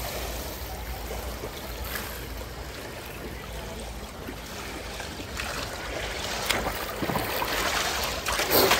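Swimming-pool water sloshing and splashing steadily, with a couple of louder splashes later on, the biggest near the end.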